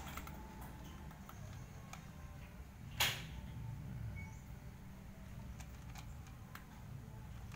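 Two cats eating dry kibble from a plastic bowl: scattered small crunches and clicks, with one sharper click about three seconds in, over a low steady hum.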